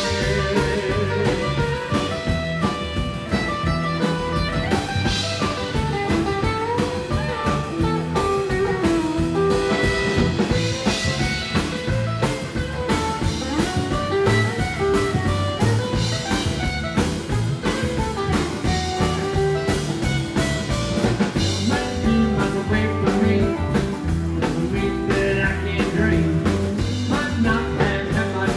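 Live rockabilly band playing an instrumental passage with no singing: electric guitar lead over acoustic rhythm guitar, upright bass and a drum kit keeping a steady beat.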